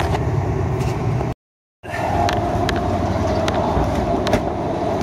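Pickup truck running under load, a steady engine and road rumble with a few light clicks and rattles, broken about a second and a half in by a half-second gap of dead silence.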